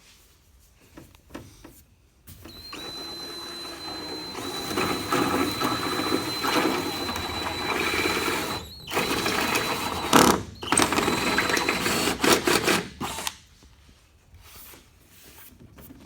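Electric drill running and drilling a hole, with a steady high motor whine. It starts a couple of seconds in, gets louder as the bit bites, stops briefly twice, and cuts off a few seconds before the end.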